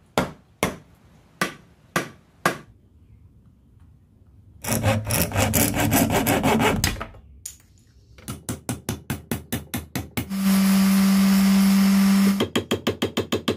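Woodworking shop sounds in quick succession: a few sharp knocks as the axe head is seated on its new wooden handle, then a hand saw cutting a small piece of wood, with a run of quick, even strokes. About ten seconds in, an electric detail sander runs steadily with a hum for about two seconds, and a run of fast strokes follows.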